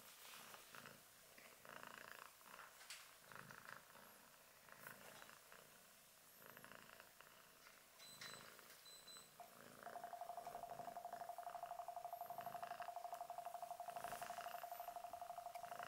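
Faint, low purring from a cat, pulsing softly in a slow rhythm. About ten seconds in, a steady hum joins it and becomes the loudest sound.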